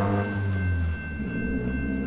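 Electric Metro suburban train passing the level crossing: a low rumble with a motor whine that rises to its highest pitch at the start and then falls away as the train goes by. Steady high ringing from the crossing's electronic bells carries on throughout.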